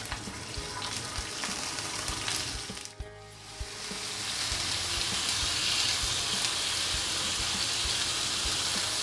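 Ginger-garlic paste sizzling in hot oil on a flat tawa griddle, then, after a brief drop about three seconds in, a louder steady sizzle as pieces of raw mutton liver fry in the oil and are turned with a spatula.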